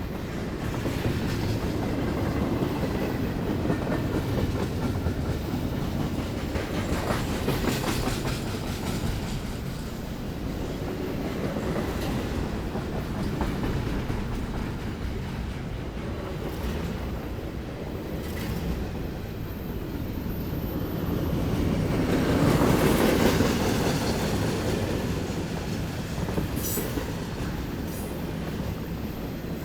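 Norfolk Southern freight train rolling through a street crossing: a steady rumble of railcars with wheels clacking over the rail joints. The rumble swells about three-quarters of the way through, and a brief high squeal follows near the end.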